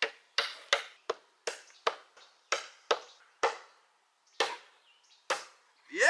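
A child hammering a nail into a wooden board: about eleven sharp strikes, unevenly spaced at two to three a second, with a longer pause about three and a half seconds in.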